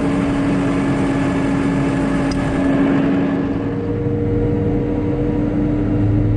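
Farm tractor engine running steadily, a constant drone with a faint change in tone about three and a half seconds in.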